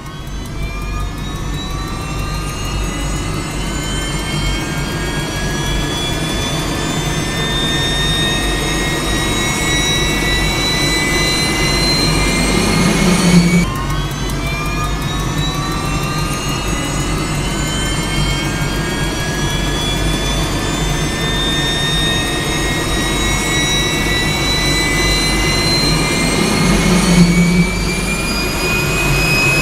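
Jet engine spooling up: a turbine whine climbing steadily in pitch over a low rumble. About halfway through, the whine drops back lower and climbs again.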